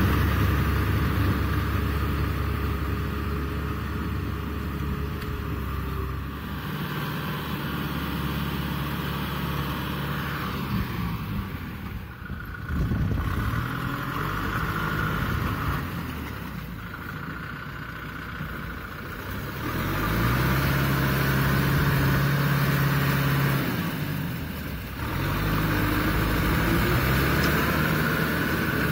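Kubota M6040SU tractor's diesel engine running under load as it drives a rotary tiller through wet paddy mud. The engine note and loudness change abruptly several times.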